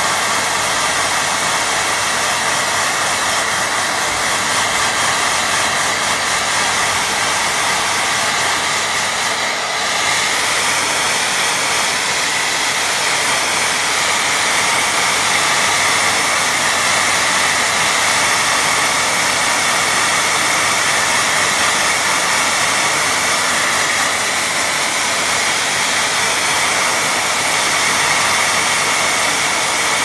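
Handheld hair dryer blowing steadily over a wet watercolour painting to dry the paint, with a brief dip in level about ten seconds in.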